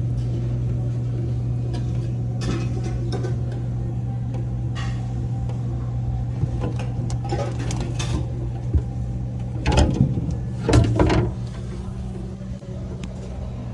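Steady low machine hum from running refrigeration equipment, with intermittent knocks and rattles of metal parts being handled; the loudest clatter comes about ten to eleven seconds in.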